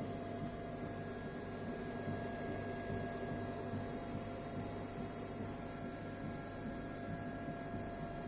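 Laser engraving machine and its water chiller running: a steady low hum with high, even whining tones that shift in the middle, typical of stepper-driven motion.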